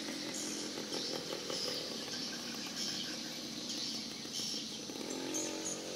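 Swiftlet lure sound of the kind played from a swiftlet house to attract edible-nest swiftlets: a buzzy, twittering call with repeated short high chirps over a steady lower drone.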